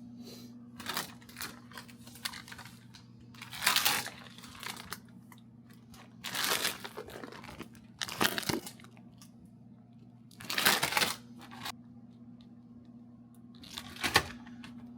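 Rustling and crinkling in short irregular bursts, about seven of them, over a steady low hum.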